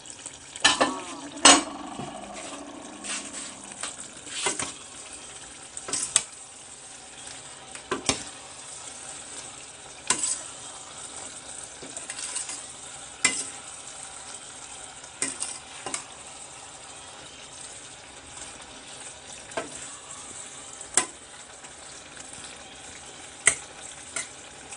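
Metal ladle stirring a stainless steel pot of boiling water-leaf soup, clinking against the pot's side every second or two over the steady bubbling hiss of the pot. A brief metallic ringing sounds near the start.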